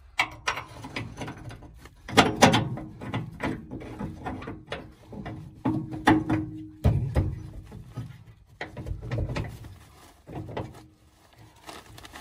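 Irregular metal knocks and clanks from the axle, bolts, tools and jack being handled while a mobile-home axle is being fitted.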